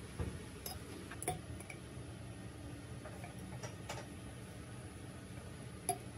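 Scattered light clinks and taps of a small metal ladle against a glass jar and a small drinking glass while wine is ladled out, about half a dozen separate knocks, the sharpest near the end.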